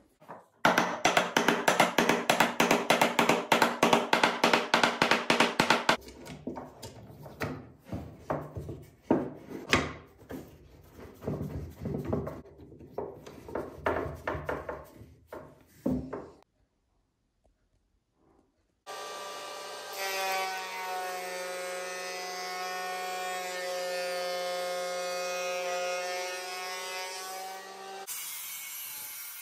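A fast, even run of strokes on wood for about five seconds, then scattered knocks and clicks as steel bar clamps are tightened around a glued-up board. About two-thirds of the way in, a benchtop jointer's motor starts running with a steady whine. Near the end it changes to the hiss of the cutter planing the board.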